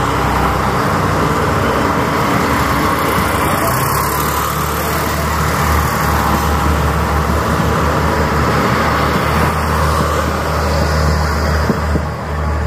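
Iarnród Éireann 22000 Class InterCity diesel railcar passing close by, its underfloor diesel engines giving a steady low drone over the rumble of wheels on the rails. The sound eases slightly near the end as the last carriage clears the crossing.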